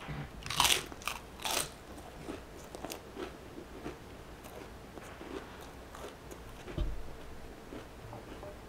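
Biting into a crisp prawn cracker: two loud crunches about half a second and a second and a half in, followed by quieter crunching as it is chewed. A dull bump sounds about seven seconds in.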